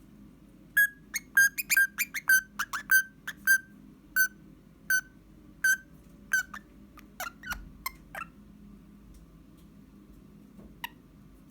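Eastern rosella whistling: a quick run of short, sharp piping notes that slows to roughly one note a second and stops about eight seconds in. A single sharp click near the end.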